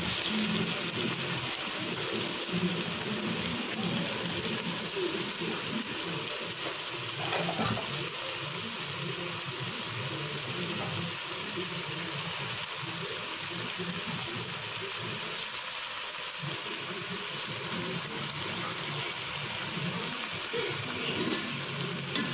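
Boiled chickpeas frying in oil with onion and whole spices in a pot, a steady sizzle as they brown.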